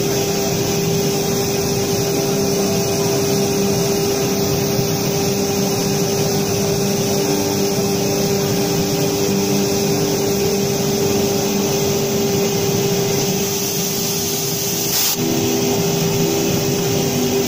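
CNC router spindle running with a steady high whine as the bit cuts through a sheet, with a short click about fifteen seconds in.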